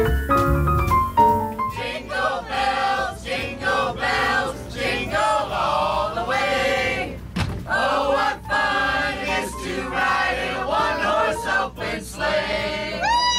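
A group of people singing together, with a piano melody in the first couple of seconds and a rising whoop near the end.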